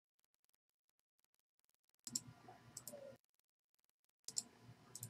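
Faint computer mouse clicks in two short bursts about two seconds apart, with near silence around them.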